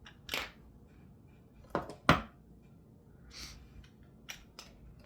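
Small hard objects being handled and set down on a work surface: a handful of separate knocks and clicks, the loudest a pair about two seconds in, with a brief rustle and two light ticks near the end.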